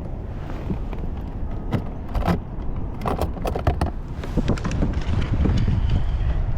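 Clicks and rattles of fishing gear being handled, with wind rumbling on the microphone.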